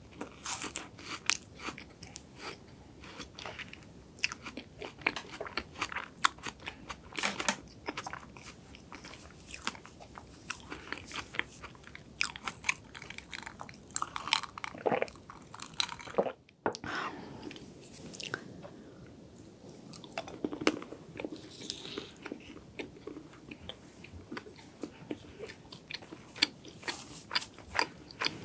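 Close-miked chewing of soft chocolate cake: wet mouth clicks and smacks, many small ones in quick succession. About halfway through come a sip and swallow from a glass of an iced drink, then a moment's silence, then the chewing resumes.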